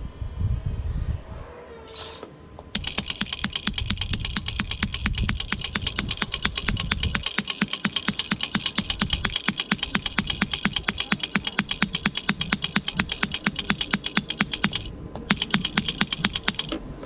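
Electric breaker hammer on a radio-controlled model excavator hammering in a rapid, even clicking rattle. It starts about three seconds in after some low rumbling, stops briefly near the end, then rattles again for a moment.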